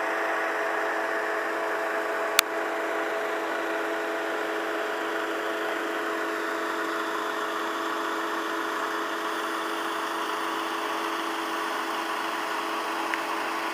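An engine running steadily at constant speed, an even droning hum. One sharp click about two and a half seconds in.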